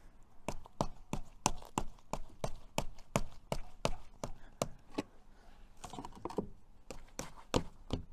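A quick, uneven series of sharp knocks, about three a second, with a gap and a few last knocks near the end: the aluminium window frame being tapped by hand into line against a wooden spacing jig.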